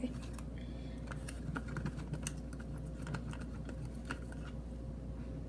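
Slime being stirred with a mixing tool in a bowl: irregular light clicks and small wet ticks as the tool works the activating mixture. A steady low hum runs underneath, which is put down to laundry running in the house.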